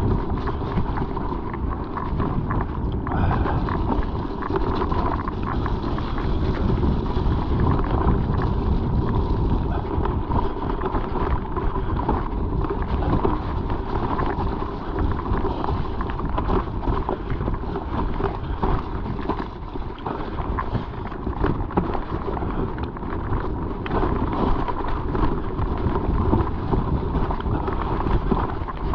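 A mountain bike ridden over a rough trail: wind buffeting the microphone over a steady rumble of tyres on the ground, with many small rattles and clicks from the bike.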